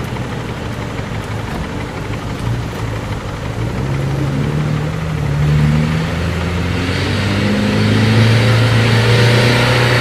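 Small truck's engine labouring as it drives through deep mud, revving up about halfway through and getting louder and harsher near the end as it pulls closer.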